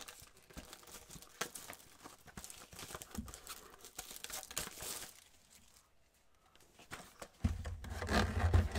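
Gloved hands handling trading-card boxes: scattered rustling, crinkling and tearing of cardboard and wrapping, a brief pause about two-thirds of the way through, then louder low handling noise as a Mega Box is picked up near the end.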